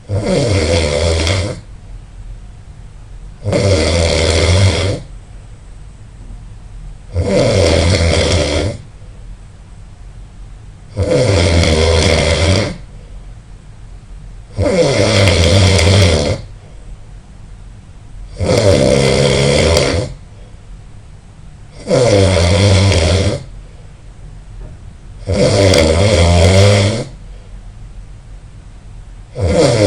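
A person snoring loudly, one rasping, buzzing snore about every four seconds, each lasting about a second and a half, with quieter gaps between.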